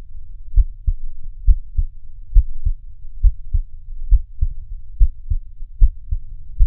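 A heartbeat recorded through an AyuSynk digital stethoscope and played back after the app's denoise processing: a steady lub-dub, about seven beats, each a pair of low thumps, a little under a second apart.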